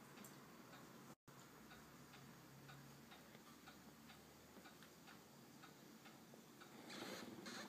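Near silence with faint ticking, a few ticks a second. A louder noise comes up near the end.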